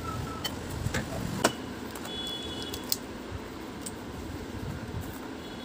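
Scattered light clicks and taps of small plastic parts and screws being handled as an air cooler's swing motor is worked free of its mount, over a steady low background hum.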